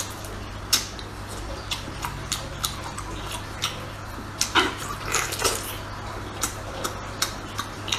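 Close-up wet eating sounds: a string of short, irregular smacks and squelches from chewing and from fingers tearing apart a sauce-braised octopus, over a faint steady hum.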